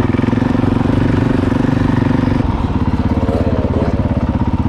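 Single-cylinder dirt bike engine running steadily at idle, close by, with an even pulsing beat; its tone changes slightly about halfway through.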